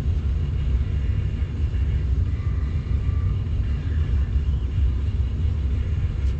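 Steady low rumble of background noise with no distinct knocks or clicks.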